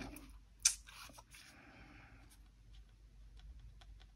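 Tarot cards handled by hand: a sharp tap of card on card about two-thirds of a second in, a soft slide of cards, then a run of light clicks near the end.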